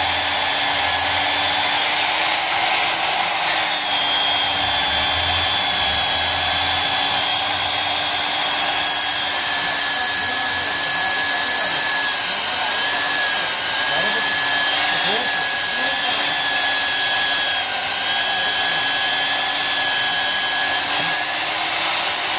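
Magnetic core drill's 1100 W motor running under load, driving a 50 mm broach (annular) cutter into steel plate. It makes a steady whine whose pitch sags a little while the cutter is fed, then rises near the end.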